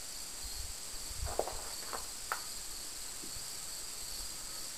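Steady, high-pitched chorus of insects in the grass and trees, with a few faint short sounds between about one and two and a half seconds in.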